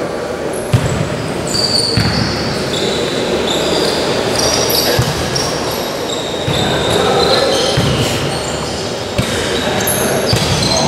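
A futsal ball kicked and passed on an indoor court, with several dull thuds, and sneakers squeaking in short high chirps on the floor. Players call out now and then, echoing in the large hall.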